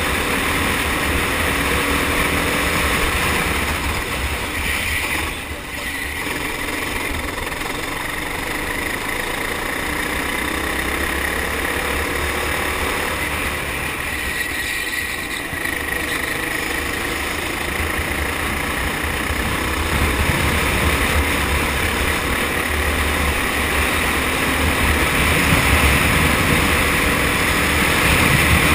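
Four-stroke kart engine at racing speed, heard from on board, its note rising and falling with the throttle, with wind noise rushing over the camera. The sound drops briefly about five seconds in.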